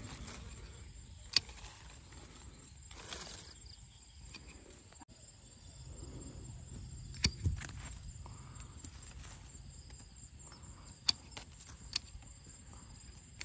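Hand pruning shears snipping small durian branches: about six sharp clicks of the blades closing, spread out, with a close pair about halfway through.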